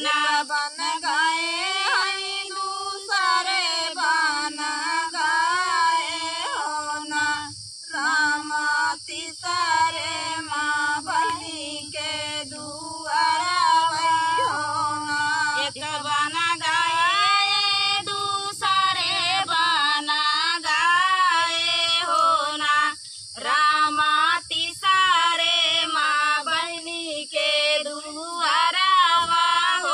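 Female voice singing a rural paddy-transplanting folk song (dhaan ropai kajari geet) in long held, wavering lines, with short pauses for breath about eight seconds in and again near twenty-three seconds.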